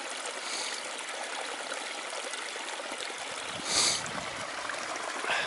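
Olchon Brook, a small moorland stream, running over rocks in a steady rush of water, with a brief louder surge of noise about four seconds in.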